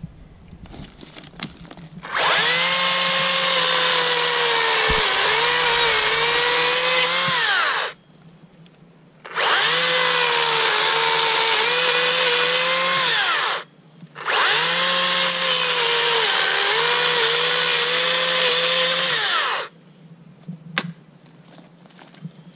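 Makita DUC353Z battery chainsaw running loud in three bursts of about four to six seconds, cutting a fallen branch. Its steady electric whine dips in pitch while cutting and winds down with a falling pitch each time the trigger is released.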